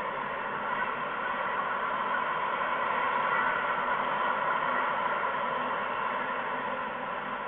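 A steady, unbroken hiss.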